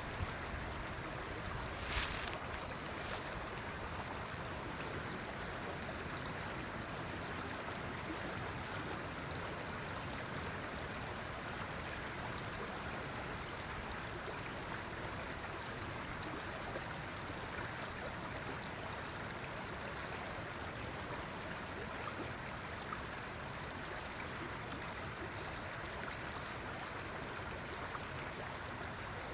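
A river flowing, a steady even rush of water. There is a brief knock about two seconds in and a fainter one about a second later.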